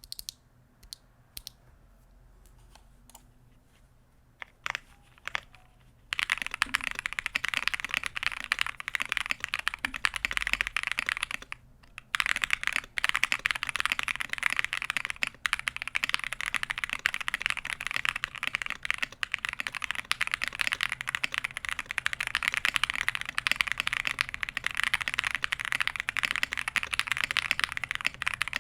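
Mechanical keyboard with Gateron Black Ink linear switches in a plateless build, foam-filled case. A few single keystrokes come first, then steady fast typing from about six seconds in, with one short break.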